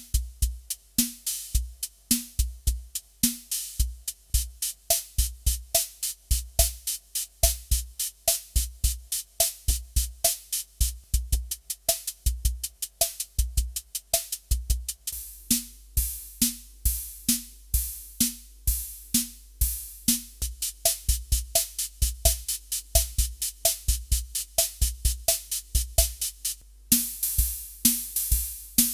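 Yamaha Electone A-55N organ's built-in rhythm unit playing an electronic drum pattern: rapid, even hi-hat ticks over bass-drum and short pitched drum hits. The pattern changes about halfway through and again near the end, where a brighter cymbal-like hiss comes in.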